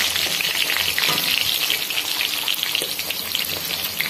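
Shallots, mustard seeds and curry leaves frying in hot oil in a kadai: a steady sizzling hiss with a constant patter of small crackling pops.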